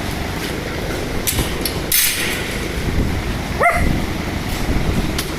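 A German shepherd gives one short, steeply rising whine or yip about three and a half seconds in. Two brief noisy clatters come a little earlier, over a steady low background rumble.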